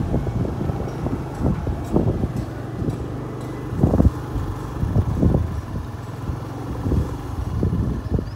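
A bus engine idling steadily, with irregular low thumps on the microphone over it.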